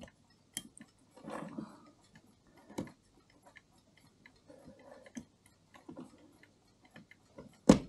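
Mainspring of a 1950s–60s Mauthe hour-and-quarter-striking clock movement being wound with a hand key: irregular clicks of the ratchet pawl as the spring tightens, with one sharper click near the end. The spring is nearly fully wound.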